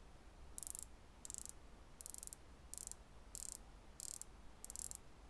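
Unidirectional 120-click ceramic bezel of a Pagani Design PD-1736 dive watch being turned by hand in short pushes: about seven quick runs of fine ratcheting clicks, roughly one run every two-thirds of a second.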